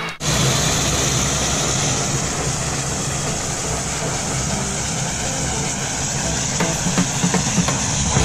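A floatplane's piston engine and propeller running steadily as the plane taxis on the water. Music begins to come in near the end.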